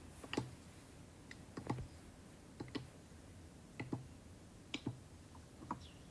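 Faint, light clicks and taps, six of them spaced roughly a second apart.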